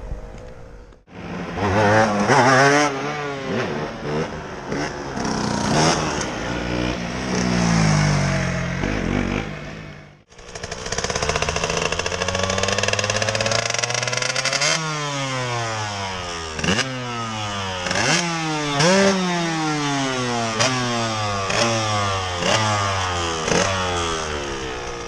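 Two-stroke 125 cc motorcycle engines revving hard and falling back over and over, the pitch sweeping up with each blip of the throttle and dropping as it closes, with a second engine's note crossing the first in the later part. The sound breaks off abruptly about a second in and again about ten seconds in.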